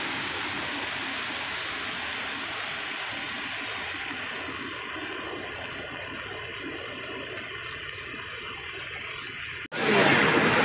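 Steady rushing noise that slowly fades, then, after a sudden cut near the end, louder rushing of floodwater torrenting through a breach in a road.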